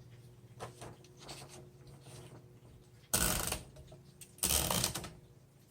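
Olivetti-Underwood 21 manual typewriter being handled and set up: soft mechanical clicks, then two louder mechanical bursts, each under a second long, about a second apart.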